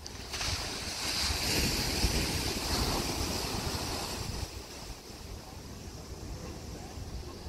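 Ocean surf breaking and washing against the rocks below a sea cliff: a hiss of foaming water that swells about half a second in and dies down after about four seconds, with wind buffeting the microphone throughout.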